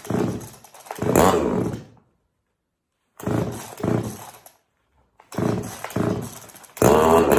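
A cheap Chinese top-handle two-stroke chainsaw, cold-soaked at minus 24, being pull-started: repeated rasping pulls of the recoil starter in groups, with the engine turning over but not catching. Near the end it fires and keeps running unevenly on a cold start.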